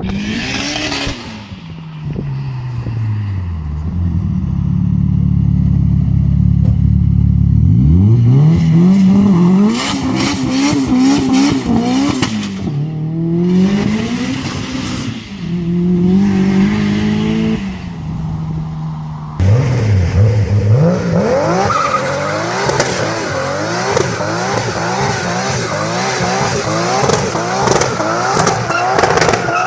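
Tuned turbocharged car engines revving hard: the revs fall and settle low, then climb and drop again several times. About two-thirds of the way through the sound cuts to another car revving in quick repeated rises and falls.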